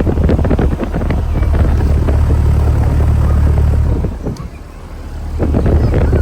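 Carrier Comfort 3-ton central air-conditioner condensing unit running: a steady low hum from the compressor and fan, with wind buffeting the microphone. The sound drops briefly about four seconds in.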